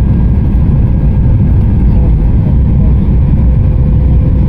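Jet airliner in flight heard from inside the cabin at a window seat beside the wing-mounted turbofan engine: a loud, steady rumble of engine and airflow, with a faint steady hum over it.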